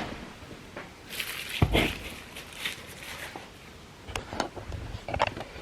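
Light handling noises: scattered short rustles and knocks, with one low thump about one and a half seconds in.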